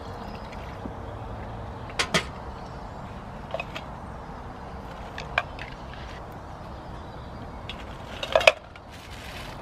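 A few sharp knocks and clatters of objects being handled, over a steady low background noise. There is a pair of knocks about two seconds in, lighter taps later, and the loudest cluster shortly before the end.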